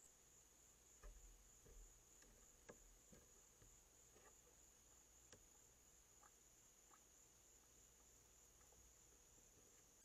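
Faint, steady high-pitched chorus of night crickets, with a few soft taps and scuffs in the first five seconds or so from a raccoon moving close to the trail camera.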